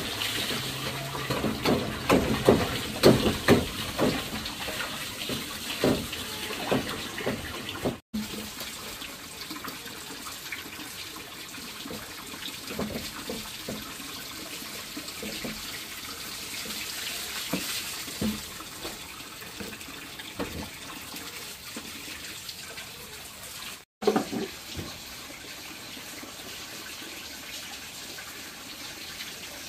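Running water, with a string of sharp knocks and clatter over the first several seconds. The sound drops out for an instant twice.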